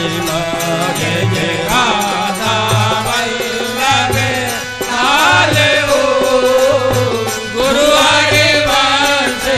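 Devotional naam dhuni music: a melodic chant of divine names over a repeating low drum beat.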